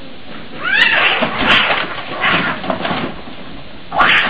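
Two cats breaking into a fight: a short yowl, then a run of harsh, noisy spitting and scuffling bursts, with a loud burst near the end.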